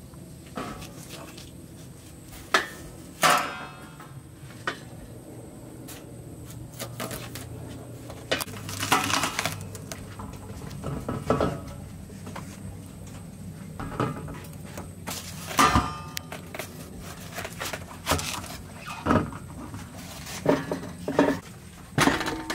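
Kitchen knives cutting through watermelon rind and the fruit and halves being handled on stainless steel trays: irregular knocks, scrapes and metal clinks, with a few sharp louder strikes.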